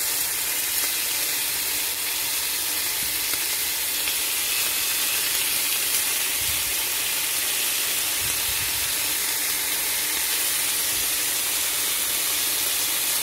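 Marinated chicken breasts sizzling steadily in a ridged grill pan.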